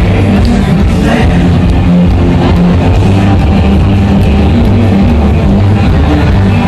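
Loud music with guitar and singing over a heavy, steady bass line, playing for line dancing.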